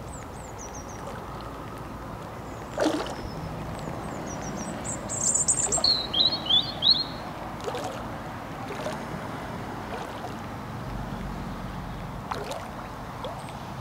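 Small birds chirping. A louder burst of song comes from about four and a half to seven seconds in, over a steady low hiss, with a few brief soft knocks.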